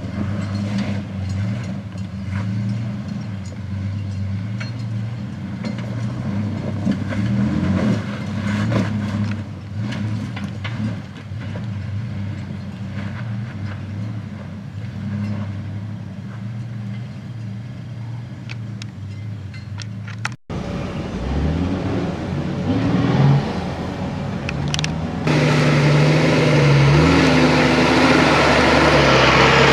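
Four-wheel-drive engines working up a steep rutted dirt climb. First a Toyota 80 Series LandCruiser's engine labours at low revs with its pitch rising and falling, among scattered clicks and knocks. After a sudden cut about two-thirds through, a Nissan GQ Patrol's engine revs, louder for the last few seconds.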